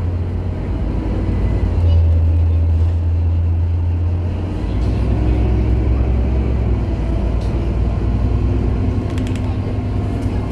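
Steady low rumble of a moving bus heard from inside the cabin, with faint voices and a few light clicks near the end.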